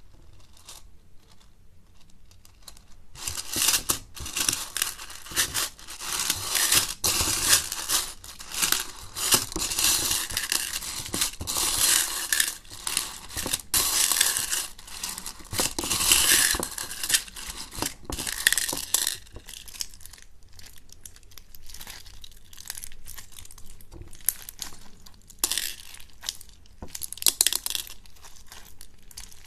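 Slime being squeezed and stretched by hand, giving dense crackling and crinkling. The crackling starts about three seconds in, thins out after about two-thirds of the way, and comes back louder briefly near the end.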